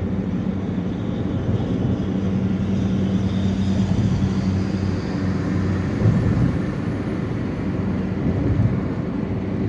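Steady drone of a moving road vehicle: engine hum and road noise, even throughout.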